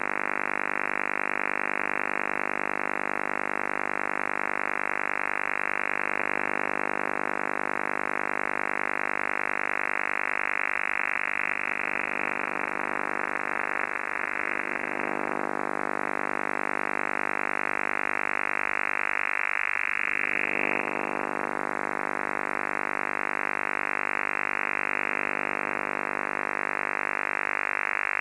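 Unidentified signal received on the CB 11-metre band: a steady, continuous drone of many tones stacked together, cut off above the radio's narrow audio range. Slow sweeping glides pass through it a few times.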